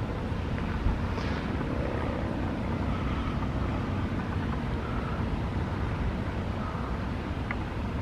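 Steady low outdoor rumble, heaviest in the bass, with no siren tone standing out.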